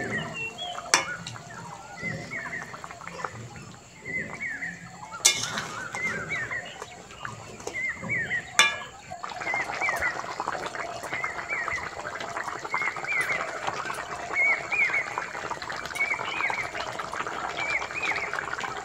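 Thin fish curry bubbling at the boil in the pan: a steady run of small bubble pops that gets denser about nine seconds in, with three sharp knocks in the first part.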